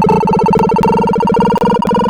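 Electronic beeps from a sorting-algorithm sonification, in which each array access sounds as a short synthesized tone pitched by the value being compared. The tones come in a rapid, clicky stream whose pitch climbs slowly.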